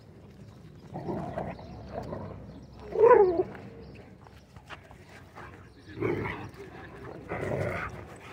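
Several dogs growling and vocalizing in short bursts as they play-wrestle. The loudest burst comes about three seconds in.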